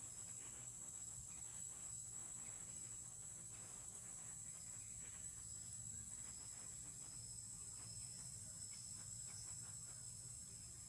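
Faint, steady high-pitched drone of insects in the forest canopy, with a second fainter tone beneath it.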